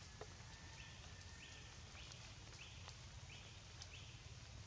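Quiet forest ambience: a faint steady hiss with scattered light ticks, and a short raspy call repeated about six times, roughly twice a second.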